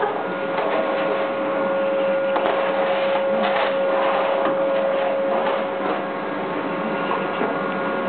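Canister vacuum cleaner running steadily: a constant motor whine over the rush of air.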